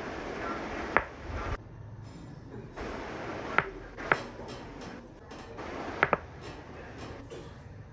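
Joints cracking under chiropractic adjustments: five sharp pops, one about a second in, two half a second apart in the middle, and a quick double near six seconds, over a low hiss.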